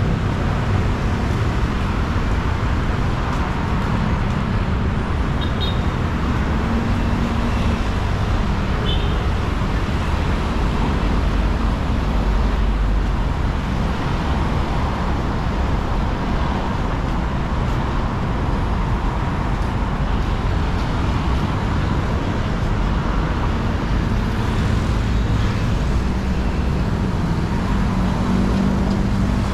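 Steady road traffic: vehicle engines running and passing in a continuous low rumble.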